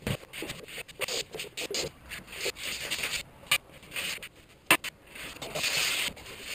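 Handling noises as a person works at a window: irregular scraping and rustling from moving a metal stepladder and climbing onto the window sill. There is a low thump at the start, two sharp clicks in the middle, and a longer scrape near the end.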